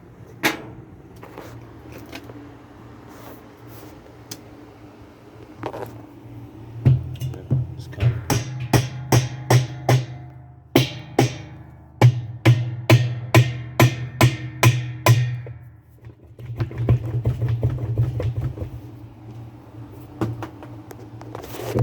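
A series of hammer blows on a washing machine's tub, about two a second in two runs, over a steady low hum. The stuck tub is being knocked around until it breaks free so it can be lifted out.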